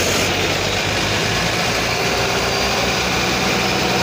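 Tata 3718 truck's diesel engine idling steadily and firing evenly, just started by a mechanic who is chasing an electrical fault from a burnt wire.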